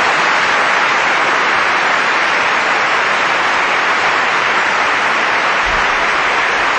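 Concert audience applauding, a dense, steady clapping.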